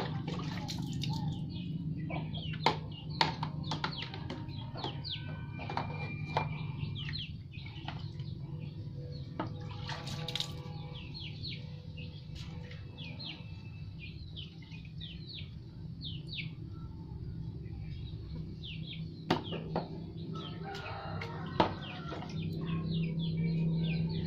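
A plastic dipper scooping and pouring water in a plastic basin: splashing and several sharp knocks of plastic on plastic. Small birds chirp throughout in short, quick chirps.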